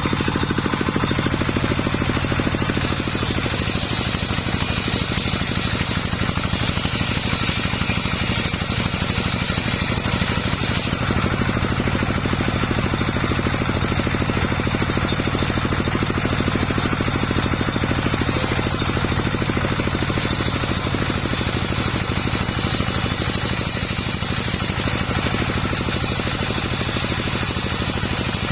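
Engine-driven homemade circular saw running steadily with a fast even engine pulse. A brighter high hiss comes in about 3 s in and again from about 20 s, as the blade rips sengon wood.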